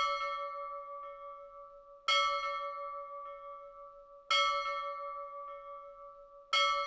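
Tibetan bell struck four times about two seconds apart, the first right at the start and the last near the end; each strike rings on and fades with a slow wavering hum. The strikes mark the close of a meditation stage.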